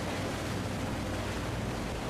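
Boat under way on open water: a steady rush of water and wind on the microphone over a low, even engine hum.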